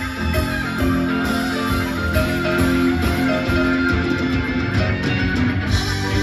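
Live rock band playing an instrumental passage without vocals: electric guitars over bass, drums and keyboard.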